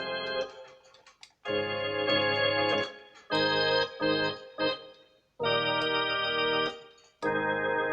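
Casio CTK-3500 keyboard's theatre organ voice playing held chords, each sustained for about a second and cut off sharply, four in a row with a couple of short notes between them.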